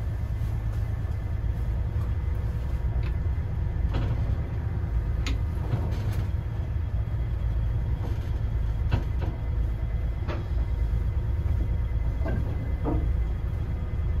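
A boat's engine running with a steady low rumble, with a few faint knocks and clicks scattered through.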